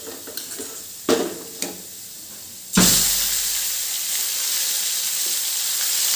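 A few light knocks, then about three seconds in marinated meat goes into the hot oil and fried onions in a metal kadai and starts sizzling loudly, a sudden onset that then holds steady.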